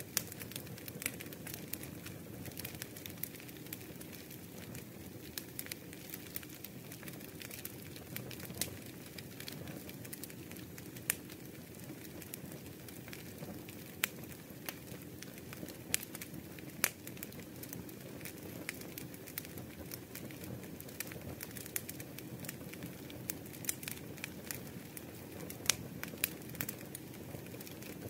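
Faint crackling: scattered, irregular sharp clicks over a steady low rumbling noise.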